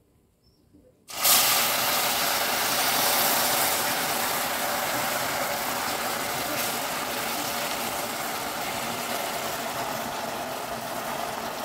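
Hot water poured onto molten sugar caramel in an aluminium pudding mold: a sudden loud sizzling and bubbling that starts about a second in and slowly dies down.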